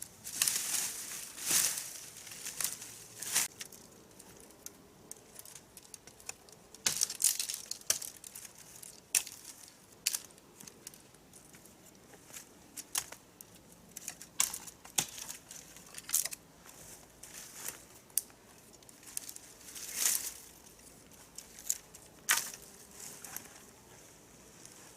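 Dry forest-floor litter crunching and rustling in irregular bursts, with sharp crackles every second or two; the loudest bursts come near the start, about a third of the way in and again past the middle.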